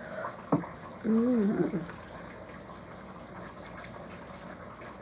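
A short knock about half a second in, then a hummed, appreciative "mmm" of rising and falling pitch lasting under a second, while someone eats by hand from a bowl. A steady hiss runs underneath.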